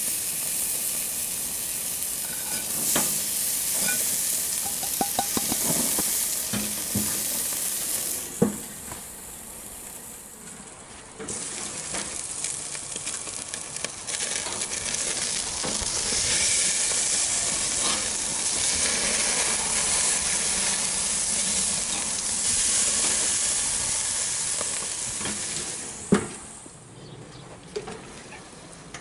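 Ribeye steaks sizzling on the grate of a charcoal grill, a steady high hiss that dips briefly about eight seconds in. Near the end a sharp clank as the grill lid closes, and the sizzle drops away.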